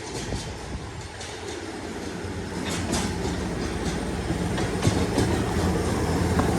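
A motorised rail vehicle running on track, its engine hum growing louder as it comes closer, with clatter of the wheels over the rails.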